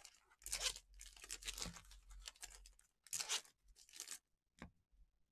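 Trading card pack wrappers being torn open and crinkled by hand, in several short rips with quieter rustling between, and a brief sharp click near the end.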